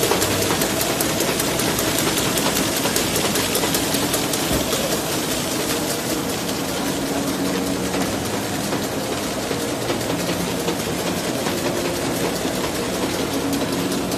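CY-B450 sharp-bottom paper bag making machine running at speed: a steady mechanical clatter with a rapid, even clicking.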